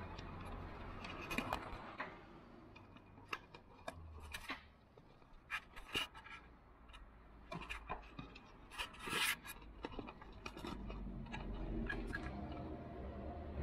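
Hand tool working on metal while water pump mounting bolts are tightened from below: scattered irregular clicks and light scrapes, with a cluster of sharper clicks about nine seconds in.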